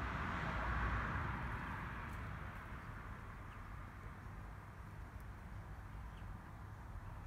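Outdoor background noise: a steady hiss over a low rumble, a little louder over the first two seconds and then easing off.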